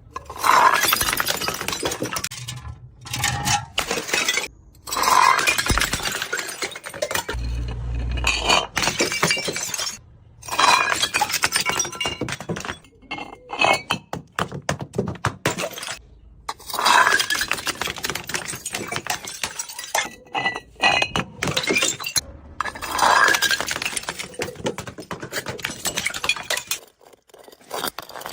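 Glass bottles shattering again and again, several loud crashes each followed by a few seconds of tinkling, clinking shards.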